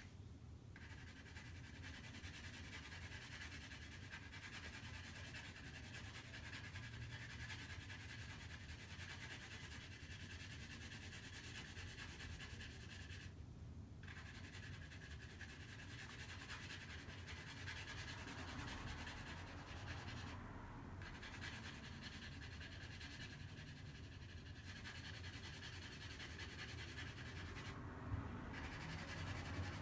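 Graphite pencil shading on drawing paper: a faint, steady scratchy rubbing that breaks off briefly a few times as the pencil lifts, with a light knock near the end.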